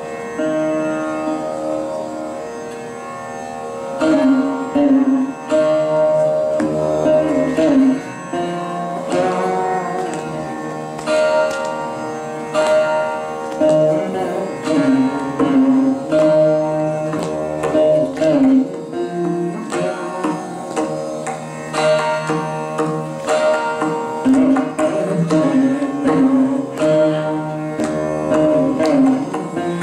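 Saraswati veena playing a Carnatic piece, plucked notes with sliding, bending ornaments over a steady drone, accompanied by mridangam. The playing is softer at first, then grows louder with sharper plucks about four seconds in.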